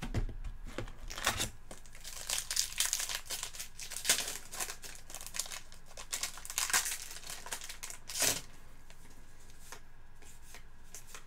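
Crinkly plastic packaging being handled and torn open, a run of irregular crackles that stops about eight and a half seconds in.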